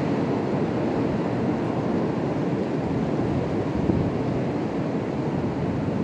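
Damaging gusty wind rushing through bare treetops, a loud, steady noise like a constant freight train.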